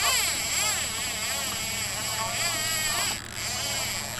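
Fishing reel's drag buzzing as a hooked shark runs and strips line. The buzz swings up and down in pitch in quick waves, then stops about three seconds in.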